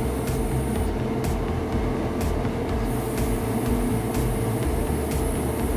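A hobby spray booth's extractor fan running with a steady hum and rumble, while a gravity-feed airbrush hisses on and off, spraying paint onto a plastic model part.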